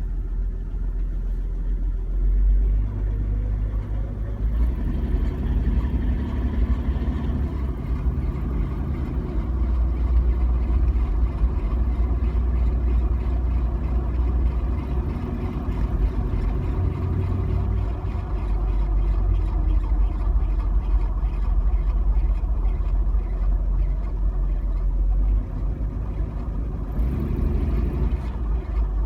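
Toyota Land Cruiser FJ80 engine running cold and being accelerated, making an odd noise that shows up only when the engine is cold and under acceleration.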